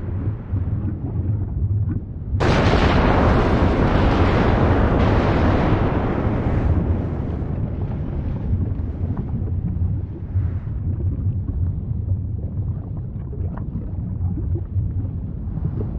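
A deep, steady rumble. About two and a half seconds in, a loud rushing surge starts suddenly and slowly dies away over several seconds, leaving the rumble with faint crackles.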